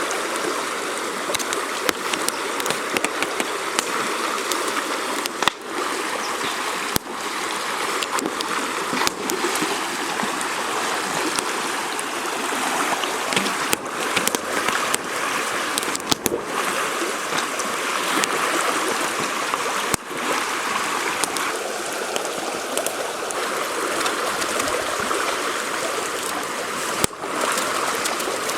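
Steady rush of a flowing river, with many small sharp ticks scattered through it.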